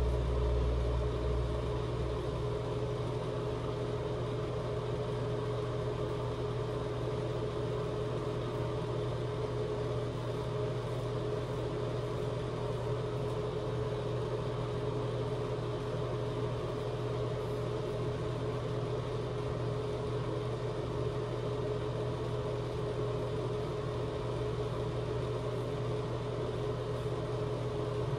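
Steady machine hum holding one pitch, with a brief low rumble in the first second or so.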